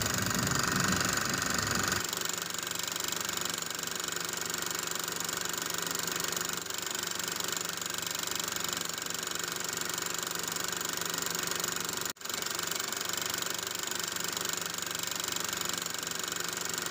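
Small 12 V DC motor driving a homemade crank-and-piston air pump through plastic gears, running steadily with a mechanical buzz as it pumps air into a water-filled glass. The sound drops out for a split second about twelve seconds in.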